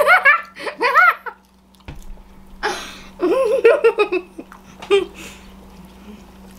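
Laughter: bursts of laughing in the first second or so and again around three to four seconds in, with a short breathy burst between them.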